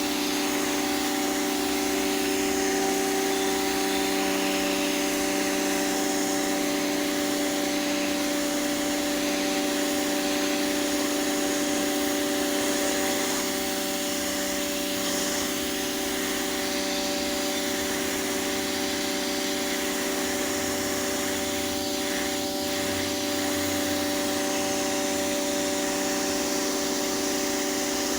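Pressure washer running steadily: a constant motor-and-pump hum with the hiss of the water spray.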